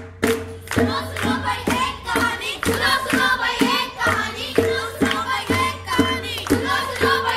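Children singing together over handclaps and a two-headed barrel drum (dhol) keeping a steady beat of about three strokes a second; the singing comes in about a second in.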